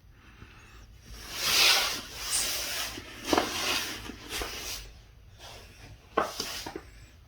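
Loud rubbing and scraping in several bursts, with a few sharp clicks around the middle and near the end.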